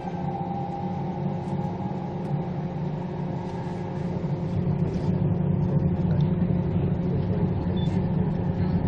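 Steady rumble of a Queensland Rail Tilt Train heard from inside the passenger carriage while travelling, growing louder about halfway through.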